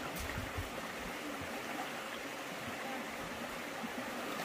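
Water of a small stream running steadily.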